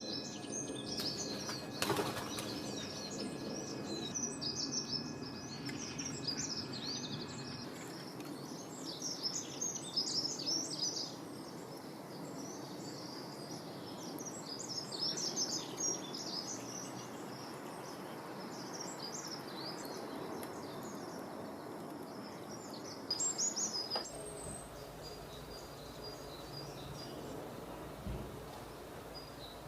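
Many short, high chirps and twitters coming in bursts over a steady rustling background.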